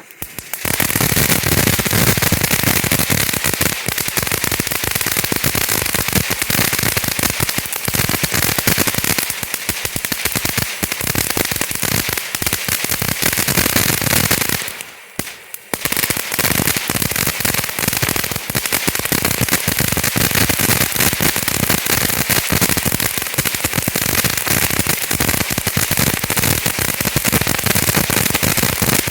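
TNT Fireworks "Delirious" ground fountain firework spraying sparks: a loud rushing hiss thick with rapid crackling from its crackling stars. It drops out for about a second around fifteen seconds in, then starts again at full strength.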